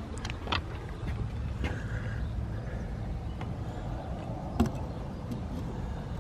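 Steady low outdoor rumble with a few light knocks, the sharpest about four and a half seconds in.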